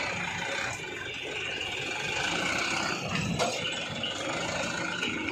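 Diesel engine of a Mitsubishi Canter dump truck running steadily as the truck drives along a dirt track.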